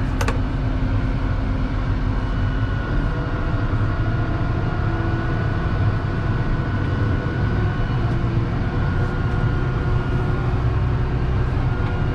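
Case tractor's diesel engine running steadily: a constant low rumble with a faint steady whine above it.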